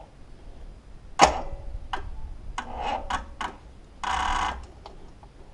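Clicks and light ticking from the front-panel controls of a Clarke petrol generator being worked by hand, its engine not running. There is one loud click about a second in and a short rush of noise about four seconds in.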